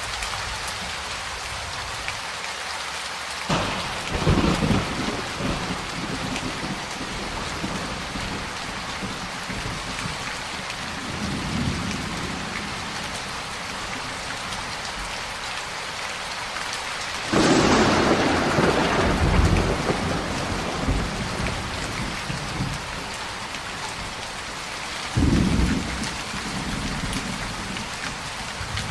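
Steady heavy rain with thunder: three rolls, about four seconds in, at the middle (the loudest and longest, with a sharp crack at its start) and near the end.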